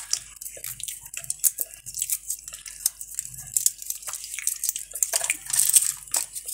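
Irregular crackling and snapping of dry, papery skins as roasted jackfruit seeds are cracked and peeled by hand.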